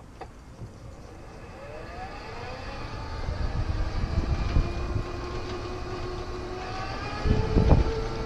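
Golf cart driving along the street: a whine rises in pitch as it gathers speed about two seconds in, then holds steady, over low wind and road rumble that builds and gets heavier near the end.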